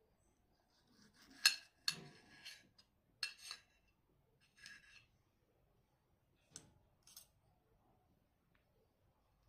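Cutlery clinking against crockery during a meal: a handful of sharp, irregular clinks with a brief ring, the loudest about one and a half seconds in.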